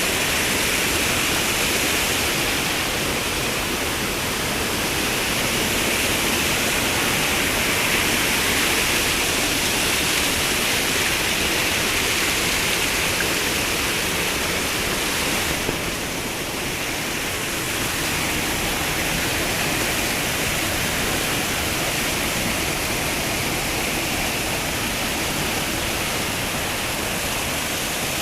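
Steady rush of flowing water, dipping briefly just past halfway.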